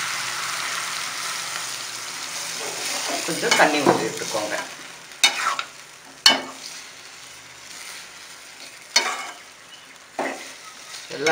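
Brinjal (eggplant) frying in oil in a pan, sizzling steadily at first, then fading as it is stirred and scraped with a utensil. A few sharp knocks of the utensil on the pan follow.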